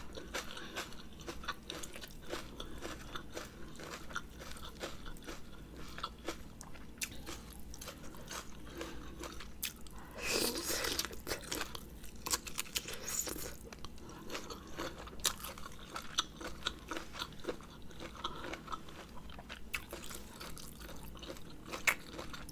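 Close-miked eating sounds: chewing, biting and crunching of a spicy Thai rice-noodle salad, a run of small moist clicks and crackles, louder for a few seconds about ten seconds in.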